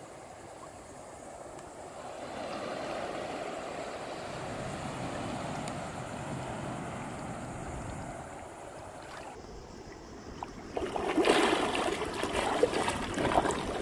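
Surf washing onto a sandy beach: a steady rush of waves that swells and eases, then a louder, rougher rush of surf starting about eleven seconds in.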